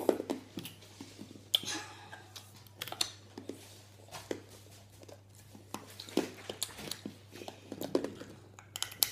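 Children sucking hard sour lollipops: faint wet mouth sounds with scattered small clicks and smacks.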